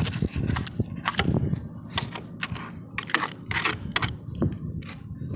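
Irregular sharp metal clicks and taps from hand tools working the rusty bolts and screws of a car's T-top center rail.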